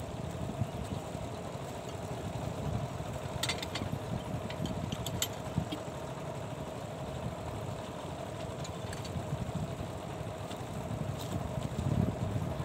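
Small single-cylinder diesel engine driving a water pump, running steadily at an even speed. A few sharp metallic clicks sound about three to five seconds in.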